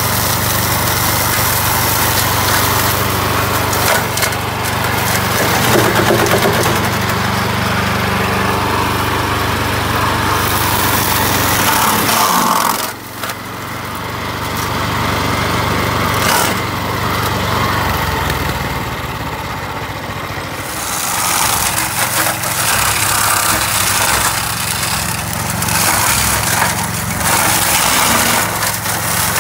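Vezdekos TS 1000 walk-behind brush mower running under load, its petrol engine going steadily while the blades chop through dense weeds and brush with a constant clatter of stalks and twigs being hit and thrown. The engine note drops and changes briefly partway through.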